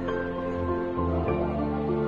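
Background music of sustained, held chords, changing chord about a second in and again shortly after.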